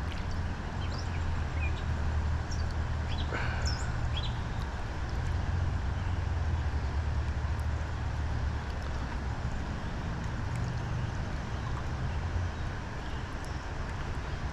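Outdoor background noise: a steady low rumble under an even hiss, with a few faint, short high chirps in the first few seconds.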